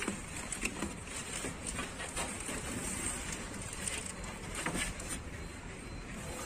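Cardboard box and MDF panel being handled: scattered scrapes and light knocks as the panel is gripped and lifted out of the box, over a steady background noise.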